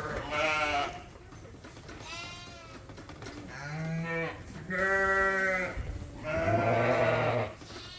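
Lambs bleating: about five separate calls, some with a wavering quaver, the loudest a little past the middle.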